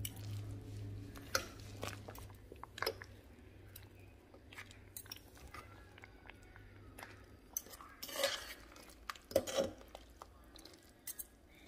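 Two metal forks shredding cooked chicken breast and stirring it through cream cheese and green salsa in a slow cooker's stoneware crock: soft squishing, with scattered clinks and knocks of the tines against the crock, the loudest a few seconds apart.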